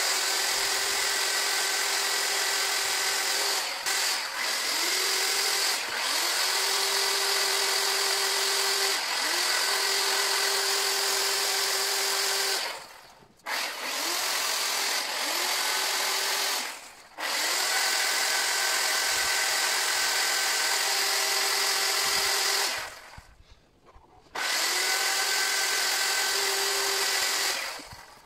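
Chainsaw carving into a wooden figure. It runs in about six bursts of a few seconds each, rising quickly in pitch at the start of each and stopping abruptly, with short pauses between them.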